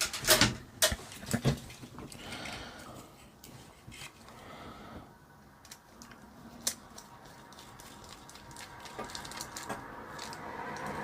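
Handling clicks and knocks on a small plastic remote control helicopter as it is being taken apart: a quick cluster in the first second and a half, one more click later, then a faint steady noise that swells toward the end.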